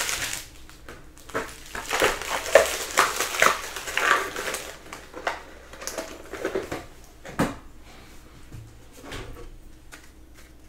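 Plastic wrapping on sealed trading-card boxes being torn open and crinkled: a run of irregular rustles and rips, with a sharp click about seven seconds in, then quieter handling.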